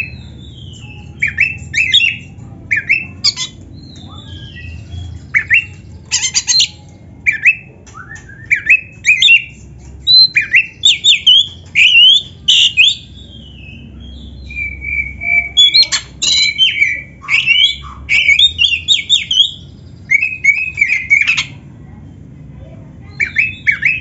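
Oriental magpie-robin (kacer) singing in loud, rapid phrases of varied sweeping whistles and harsh chattering notes, with short gaps between phrases. About fifteen seconds in, it holds one longer steady whistle.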